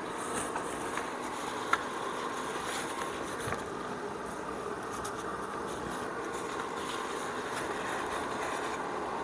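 Steady whir of a Bolde Super Dryer portable clothes dryer's 1000-watt heater blower running on its timer, blowing warm air up into the fabric cover. A single light knock a little under two seconds in.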